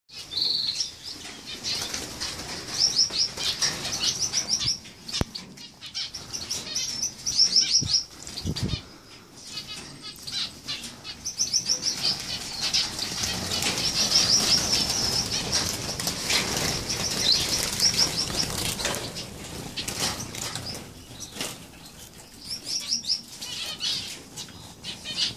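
Small aviary finches chirping and twittering, with quick runs of short high notes repeated again and again.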